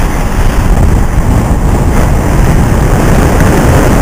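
Wind buffeting the microphone in a loud, steady low rumble over water rushing along the hull of a sailing yacht under way at about 6 knots.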